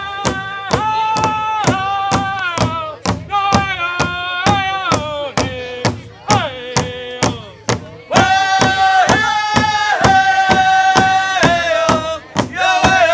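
Drum song: singing in long, held chanted notes over a steady drumbeat of about three beats a second, growing louder about eight seconds in.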